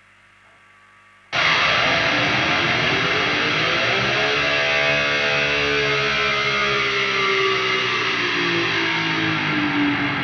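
Distorted high-gain electric guitar struck about a second in after a faint steady hum, then held and sustained, its notes bending and sliding downward.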